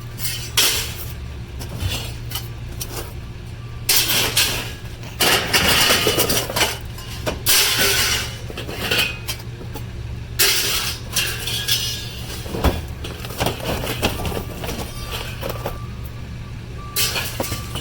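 Scrap metal clanking and clattering in irregular crashes as pieces are handled and tossed into a dumpster, over a steady low hum.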